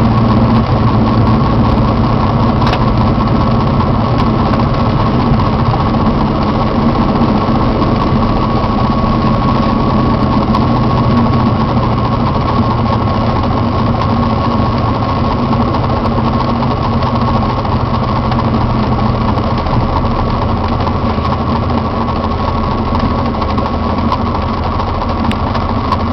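Small airplane's engine running at idle, heard inside the cockpit during the landing rollout and taxi, a steady drone with a steady high whine above it. The engine note drops slightly about two-thirds of the way through.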